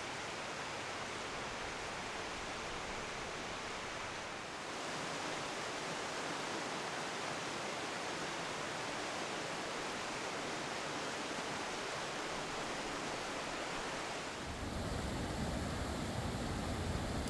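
Rocky mountain river rushing over stones and small falls, a steady hiss. Near the end it grows louder and deeper.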